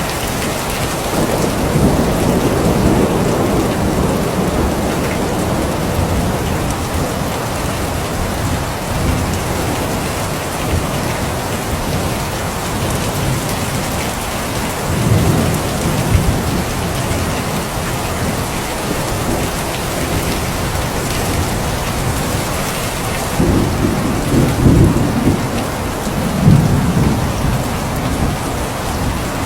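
Steady heavy rain with rolls of thunder rumbling in low and swelling several times, strongest near the end.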